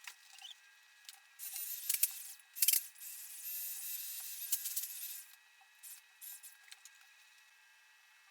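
A cicada's harsh, raspy distress buzz, coming in several broken bursts for about four seconds from a second and a half in, then stopping, with a few faint short scratches after.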